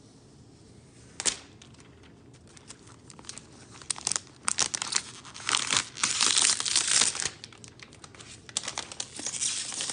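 Packaging wrap being handled, crinkled and torn during an iPad unboxing: a sharp click about a second in, then bouts of dense crackling with a short lull near the end.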